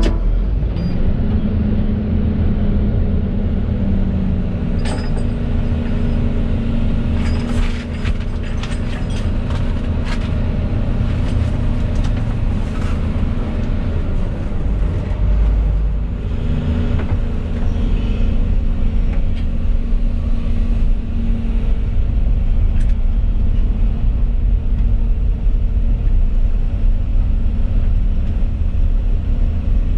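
Volvo EC220E excavator's diesel engine running steadily under digging load, with scattered knocks and rattles from the working machine in the first half.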